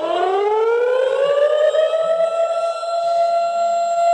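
Civil-defence siren winding up, its pitch rising over about two seconds and then holding a steady wail, sounding as an emergency alert.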